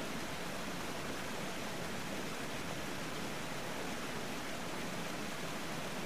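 Steady, even rushing of churning waterfall water, heard muffled from underwater through an action camera's waterproof housing.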